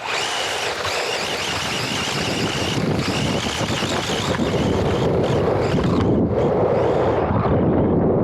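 Onboard sound from a camera riding on a racing RC car: a loud, steady rush of wind on the microphone and tyres running over dirt, with a high, wavering motor whine through the first half that fades out.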